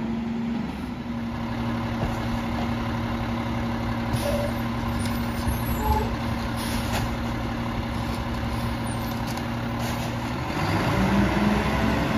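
Mack LEU rear-loader garbage truck's engine running at a steady raised speed, then dropping and wavering near the end. A short hiss of air comes about four seconds in.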